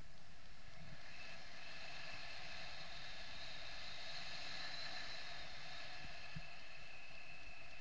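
Steady rush of air streaming past a paraglider pilot in flight, with a few faint steady tones over it.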